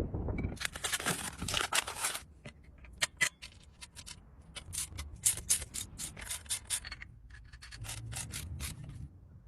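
Abrasive rubbing strokes on metal parts of a rusty bicycle being cleaned up by hand: a dense run at the start, then separate quick strokes.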